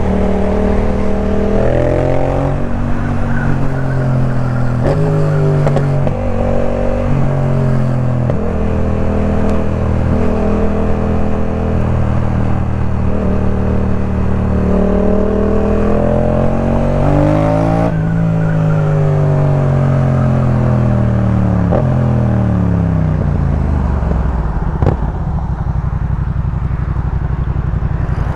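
Yamaha MT-07's parallel-twin engine through a Jeskap K4 full exhaust, under way: it revs up through several quick gear changes in the first eight seconds or so, holds a steady pitch, climbs again, then winds down as the bike slows and settles to a low, steady note for the last few seconds.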